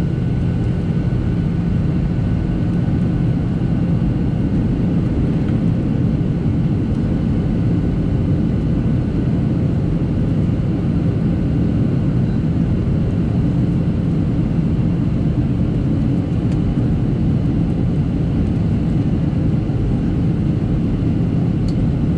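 Steady in-flight cabin noise inside a Boeing 737-700: the low, unbroken rumble of its CFM56-7B turbofan engines and the airflow over the fuselage, with faint steady whines above it.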